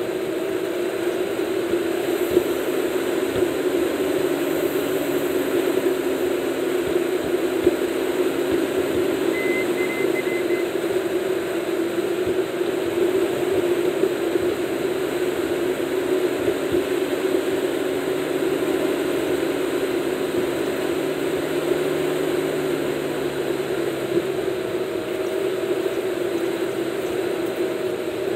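Steady road noise of a car at highway speed, heard inside the cabin: an even hum of engine and tyres.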